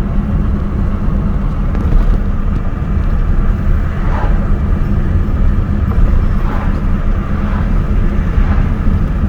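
Steady low rumble of a moving car, the road and engine noise of driving.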